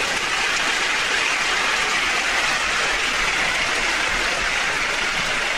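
Audience applauding: dense, steady clapping at an even level.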